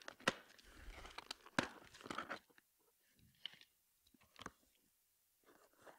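Utility knife blade slicing through a corrugated cardboard box and its packing tape: a crunching, crackling scrape with sharp clicks over the first two seconds or so, then only a few faint scattered clicks and rustles.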